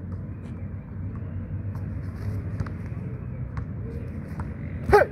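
Steady low rumble of room noise with a few faint knocks, then near the end a short, loud shout from a person that falls in pitch, typical of a martial artist's shout during a form.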